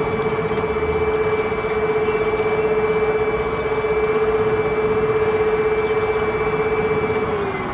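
CREE MH 108 brushless electric outboard motor running at steady speed with a steady whine, over the rush of water and wind. Near the end the whine drops slightly in pitch as the motor eases off.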